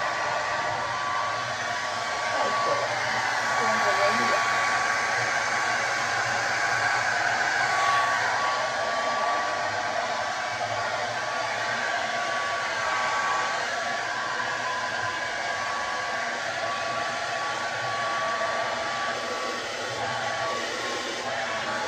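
Conair 1875 hand-held hair dryer running continuously, a steady rush of air with a thin motor whine, swelling a little as it is moved over the hair.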